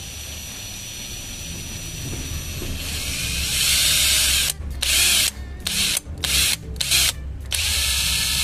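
Cordless drill driving a self-drilling screw through a plastic motorcycle fender extension. It runs softly for the first three seconds, then turns much louder as the screw bites, stopping and restarting several times in short pulses before a steady run near the end.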